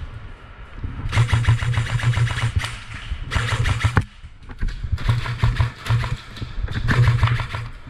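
Airsoft guns firing in several rapid full-auto bursts, the fast clicks of the shots over the hum of the gun's motor and gearbox.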